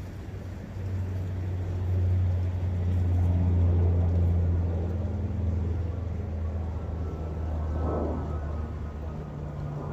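Low, steady engine drone with a deep hum and a few steady overtones, swelling a couple of seconds in and then slowly easing, as of a passing motor, over a soft outdoor noise bed.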